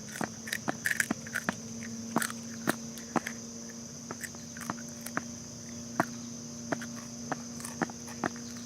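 Steady, high-pitched chorus of crickets or similar insects, with many irregular sharp clicks and crackles throughout and a faint steady low hum underneath.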